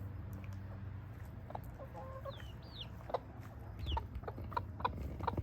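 Chickens clucking: short clucks that come quicker and closer together in the second half, with high, falling peeps among them.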